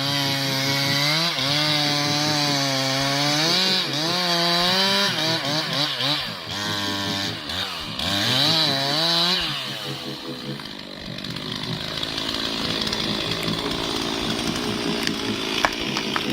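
Chainsaw engine revving, its pitch rising and falling again and again, then turning into a rougher, noisier sound about ten seconds in.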